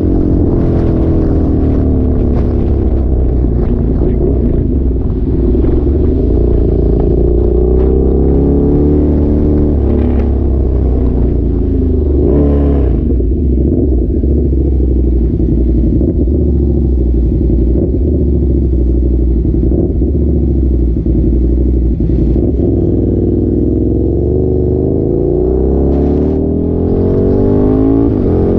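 A vehicle engine running with a strong low rumble, its pitch rising and falling several times as it speeds up and slows.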